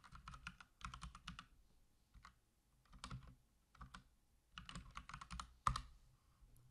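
Typing on a computer keyboard in quick bursts of keystrokes, with short pauses between words and one louder single click near the end.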